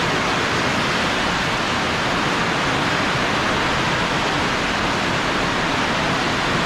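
Heavy rain pouring down in a storm: a loud, steady, dense hiss that does not let up.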